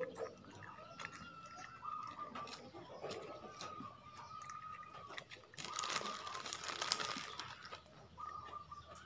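Faint small clicks of a plastic spoon in a small plastic cup, with a crinkly rustle of plastic for about two seconds past the middle, over a faint steady high tone.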